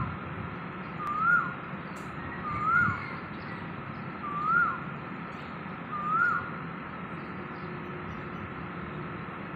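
A bird calling a single short whistled note over and over, each note rising and then dropping sharply, four times about a second and a half apart, then stopping a little past halfway. A faint steady low background hum runs underneath.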